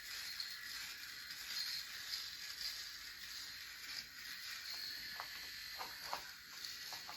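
Electric rotary shaver running with a faint, thin buzz, with a few short higher sounds about five to six and a half seconds in.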